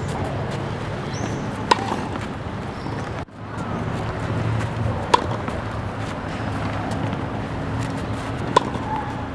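Tennis racket striking the ball three times, about three and a half seconds apart, each a short sharp pock, over a steady low outdoor background hum.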